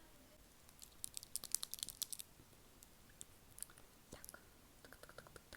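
Close-miked ASMR mouth sounds: wet clicks and smacks of lips and tongue, a quick run of clicks about a second in, then scattered single clicks.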